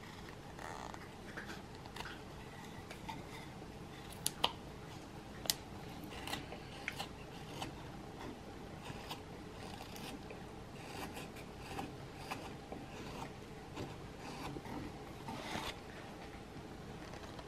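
A single carving knife whittling a basswood blank: short slicing strokes and crisp clicks as chips are cut out of the notches, the sharpest snaps about four and five and a half seconds in.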